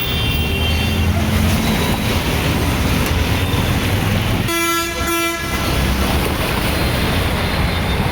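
Jammed road traffic: a steady low rumble of engines, with a vehicle horn honking twice in quick succession about halfway through.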